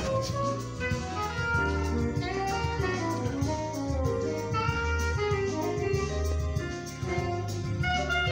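Music: a melodic instrumental line with changing notes over a steady bass line.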